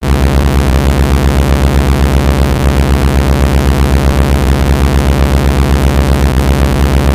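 Loud, harsh, heavily distorted electronic noise: a dense stack of steady tones over a hiss, with a low buzz pulsing about eight to ten times a second.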